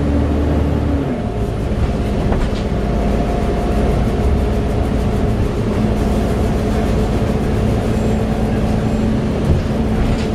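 Volvo B7TL double-decker bus heard on board while running at speed, a steady engine and transmission drone over road noise, with the loud, hoover-like whine of its engine cooling fan. One of the steady tones drops away about a second in.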